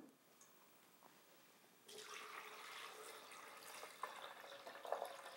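Water pouring from a glass pitcher into a blender jar of almonds, starting about two seconds in after near silence and running on steadily.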